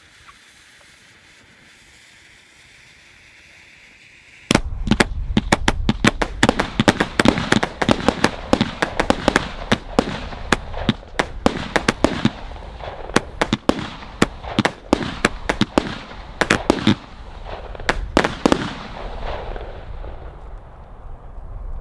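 Celtic Fireworks 'Disco Balls' 19-shot 25 mm firework cake heard from about 100 metres. Faint hiss at first, then about four and a half seconds in it starts firing: a rapid string of sharp bangs and cracks that thins out and stops about nineteen seconds in, leaving a fading rumble.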